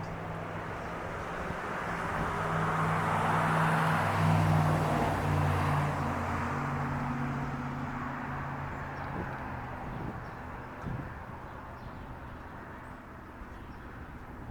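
A motor vehicle driving past: engine and tyre noise grows to its loudest about four to five seconds in, then fades away.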